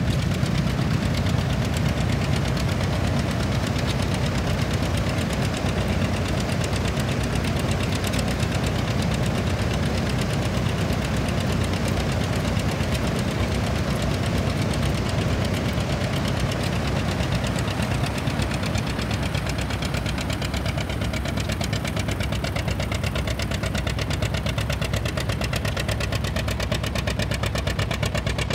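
John Deere 720 diesel's two-cylinder engine running steadily under load, belted to a Baker fan, with the whir of the fan blades in the cage.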